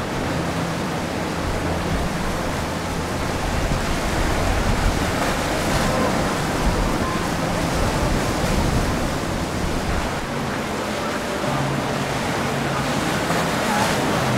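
Motorboat under way: steady rush of wind and water, with the low hum of the outboard engine fading in the middle and coming back near the end.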